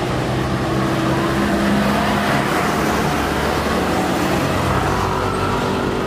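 Boeing 787-8 airliner's jet engines running at taxi power: a steady roar with a low engine hum underneath.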